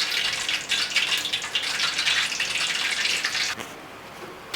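Hot cooking oil spluttering and crackling in a pan as it heats, a dense sizzle that cuts off abruptly about three and a half seconds in.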